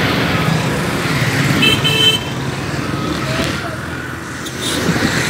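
Motorcycle engine running with road and traffic noise while riding in busy traffic. A vehicle horn gives a short beep about a second and a half in.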